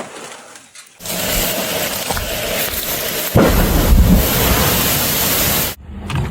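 A tree coming down: a sudden rushing, crashing noise through the branches, then a heavier low rumble a couple of seconds later as it hits. The sound cuts off suddenly near the end.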